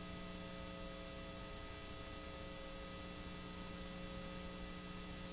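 Steady electrical hum made of several fixed tones, over a constant hiss.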